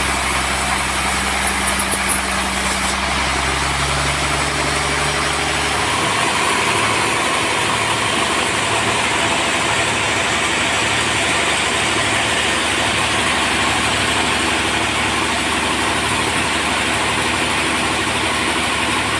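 Sawmill machinery running steadily. About six seconds in the low hum drops away and gives way to a noisier, higher sound that holds to the end.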